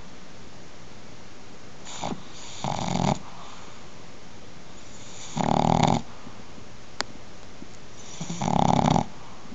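Snoring in a slow, even rhythm: three rough, rattling snores about three seconds apart, each lasting under a second.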